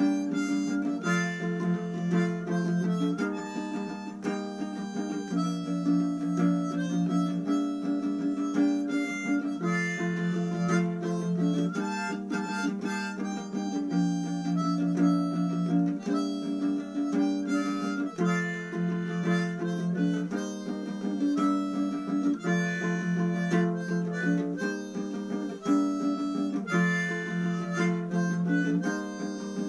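Harmonica playing a melody in held notes over steady ukulele strumming.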